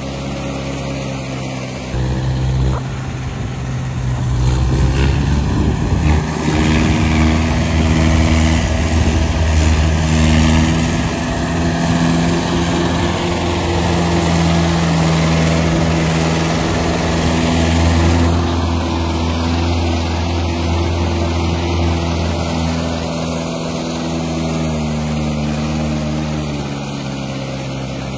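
Mahindra farm tractor's diesel engine running under load as it hauls a trolley loaded with soil over a rough dirt track. It grows louder a few seconds in, holds strong through the middle, and eases slightly near the end.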